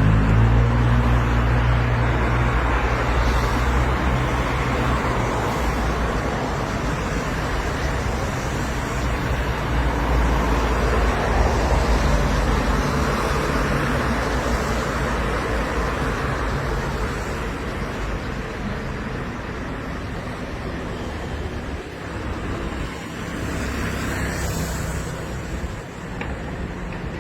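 Steady motor-vehicle engine and road noise: a low engine hum under traffic rumble, gradually getting quieter.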